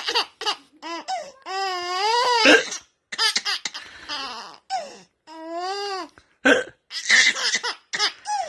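A man hiccuping again and again, short sharp bursts, while a baby laughs in response with two long high-pitched squealing laughs in between.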